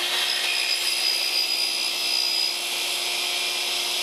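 Compound sliding miter saw running at full speed with a steady high whine, making a square cut into plywood.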